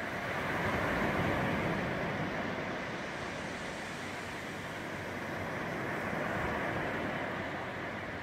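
Low sea waves breaking and washing up the shore: a steady rushing surf that swells about a second in and again about six seconds in.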